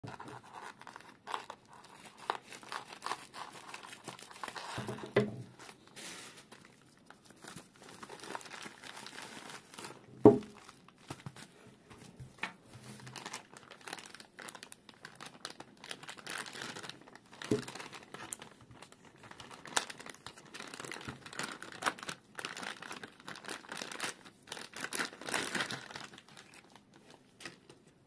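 Plastic packaging, a bubble mailer and then a clear poly bag, crinkling and rustling as it is handled and opened, with scattered clicks and a sharp knock about ten seconds in.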